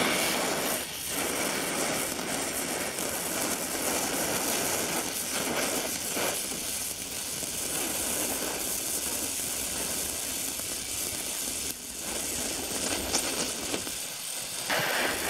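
Oxy-acetylene welding torch flame hissing steadily against thin steel plate, with brief dips about a second in and near the end.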